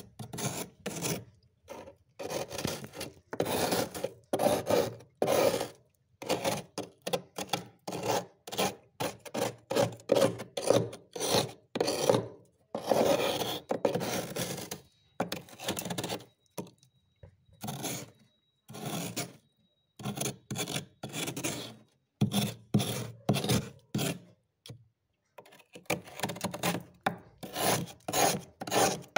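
A metal spoon scraping thick frost off a freezer's walls: repeated short, gritty rasping strokes with brief gaps between them, and a longer pause near the end.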